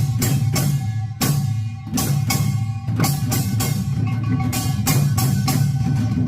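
Korean buk barrel drums beating a Yeongnam nongak rhythm in quick repeated strokes, over a steady ringing tone. The strokes thin out briefly a little over a second in, then pick up again.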